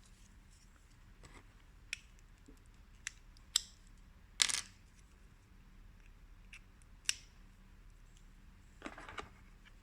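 Scattered small plastic clicks and handling knocks of an OTG cable and USB flash drive being fitted to a smartphone, about half a dozen clicks with the loudest a little before the middle and a short cluster near the end.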